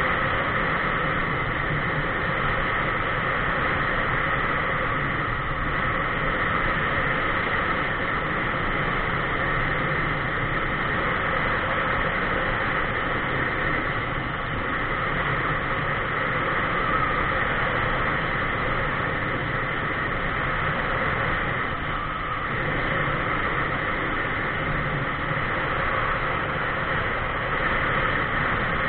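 Steady rush of wind and road noise from a camera mounted on a vehicle moving along a paved road.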